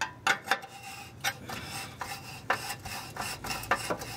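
Front oxygen sensor being unscrewed from the exhaust pipe with a 22 mm wrench: irregular metal clicks of the wrench on the sensor's hex, with scraping and rasping from the stiff threads as it turns.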